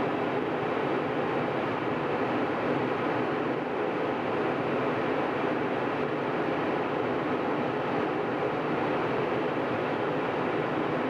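Steady cabin noise of a jet airliner in cruise: an even rush of engine and airflow noise, heard inside the cabin at a window seat by the wing.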